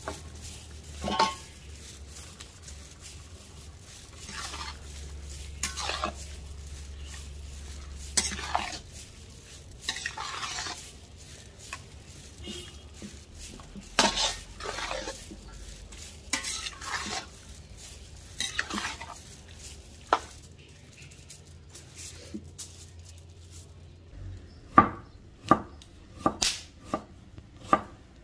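A spoon stirring and scraping food in a metal cooking pot in irregular strokes. Near the end a knife starts chopping on a board with sharp, evenly spaced strokes, about one and a half a second.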